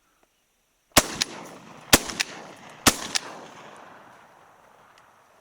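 Three shotgun shots fired in quick succession about a second apart, each followed a quarter-second later by a fainter crack, the last report dying away over about two seconds.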